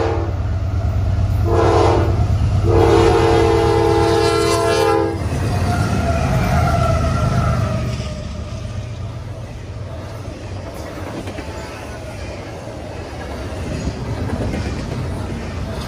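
A diesel freight locomotive's multi-chime air horn sounds a short blast and then a long one, the close of the grade-crossing signal, over the rumble of the engines. The horn stops about five seconds in, and a double-stack intermodal train rolls past with steady wheel-on-rail clatter.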